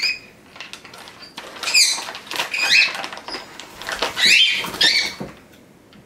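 Pet parrots giving short, squeaky chirps that sweep up in pitch, several spread over a few seconds, with the crackle of a foil food bag being handled.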